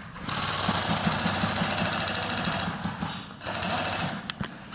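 Electric airsoft rifle firing on full auto in two bursts, a long one of about two and a half seconds and then a short one of about a second.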